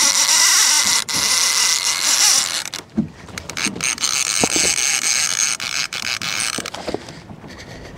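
Fishing reel drag screaming as a hooked king salmon strips line on its first run. It is steady for about three seconds, then comes in stuttering spurts and eases off near the end.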